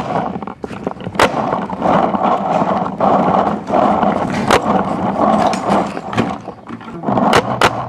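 Paintball marker firing single sharp shots: one about a second in, one midway, and two in quick succession near the end, over a steady rustling hiss.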